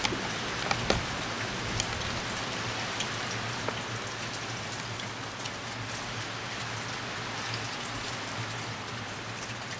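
Steady rain falling on a wooden deck, with a few sharp ticks scattered through it and a low steady hum underneath.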